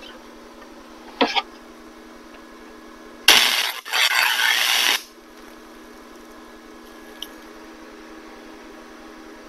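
Wire-feed MIG welder arc crackling and spitting in one burst of about a second and a half, briefly broken near the start, over a low steady hum. The welder is fed solid wire with no shielding gas. A short sharp click comes about a second in.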